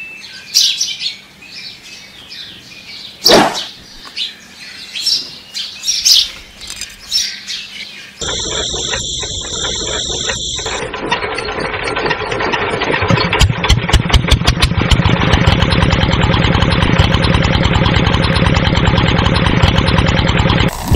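Birds chirping, with a sharp click about three seconds in. About eight seconds in, a miniature model diesel engine is hand-cranked and starts running with a rapid, even beat that grows louder.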